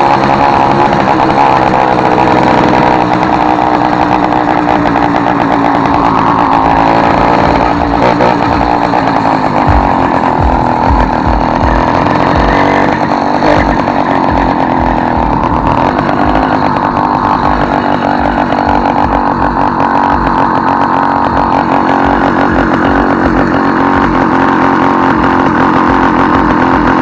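A motorized bicycle's small two-stroke engine running loudly through an exhaust with the original tip removed and the outlet widened, giving a raspy note compared to a Yamaha RD 135. The engine note rises and falls a few times as the throttle is worked.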